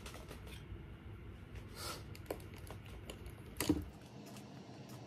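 Faint clicks and rustles of small makeup items being handled, with one louder knock about three and a half seconds in.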